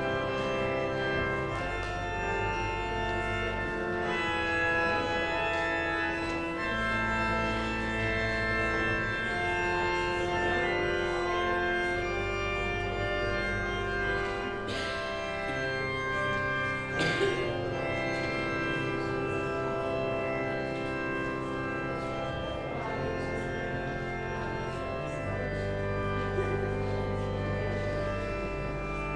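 Church organ playing slow, sustained chords over a bass line that moves in long held notes, with a couple of brief knocks past the middle.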